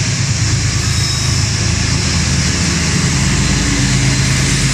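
Diesel-electric freight locomotives passing close by in the middle of a moving train, their engines giving a loud, steady low drone over a constant hiss of wheels on rail.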